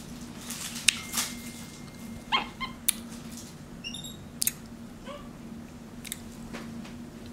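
Young capuchin monkey giving a few short, high squeaks, one gliding downward near the end, among scattered sharp clicks of licking at a lollipop.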